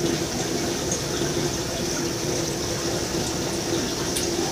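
Steady rushing of running water, with a faint low hum underneath.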